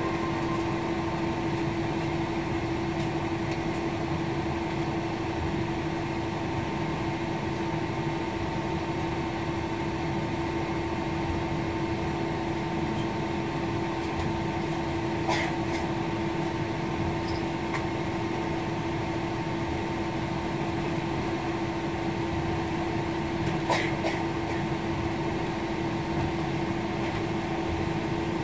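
Steady jet airliner cabin hum while taxiing, the engines at low taxi power with the cabin air system, carrying a constant low tone. Two brief clicks, about 15 and 24 seconds in.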